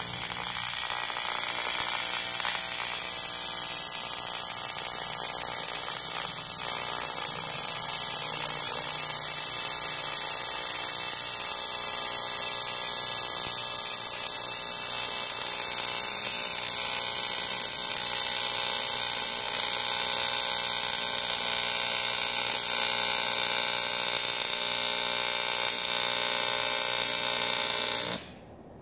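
AC TIG welding arc on aluminium: a steady buzz with a strong hiss that holds unbroken, then cuts off suddenly near the end as the arc is broken.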